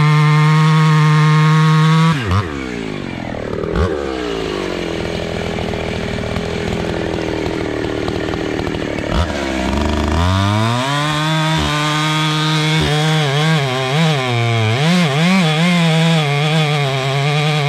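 Husqvarna chainsaw running at full throttle, cutting a large log. About two seconds in the revs drop suddenly and the engine runs lower and unevenly; around ten seconds in it revs back up and stays high, its pitch wavering as the chain cuts into the wood.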